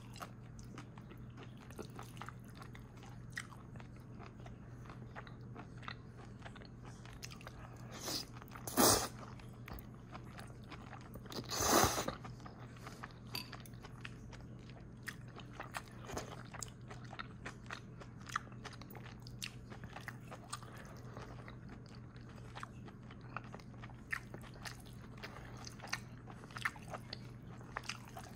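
A person chewing and biting food, with many small wet clicks and two louder bursts of mouth noise about nine and twelve seconds in. A steady low hum runs underneath.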